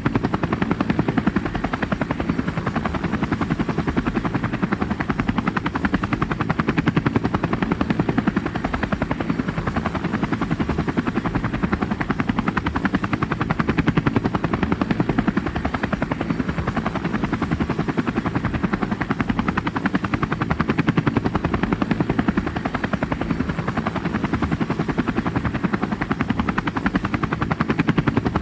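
Helicopter running steadily, its rotor beating in a fast, even chop, with a thin steady high whine above it.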